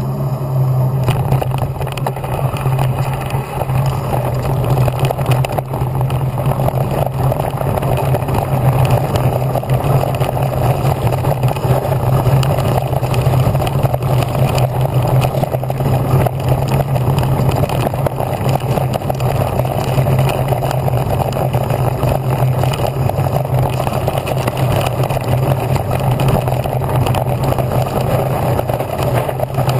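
Electric mountain bike riding over a bumpy dirt forest trail, heard from a camera on the handlebar: a steady low hum under rough tyre and rattle noise, with many small knocks from the bumps.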